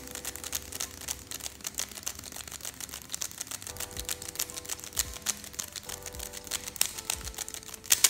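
Plastic 3x3 speed cube being turned fast by hand, its layers snapping round in rapid clicks as the same two moves are repeated over and over.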